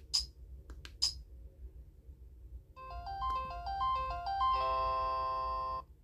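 Samsung SPH-A860 flip phone: a few sharp clicks in the first second, then its electronic power-off jingle, a quick run of stepping beeping notes ending in a held chord that cuts off suddenly.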